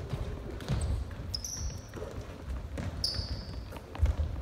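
A basketball bouncing on a hardwood gym floor, and basketball shoes squeaking on the court in short high squeals about a second and a half in and again about three seconds in. A heavier thud comes near the end.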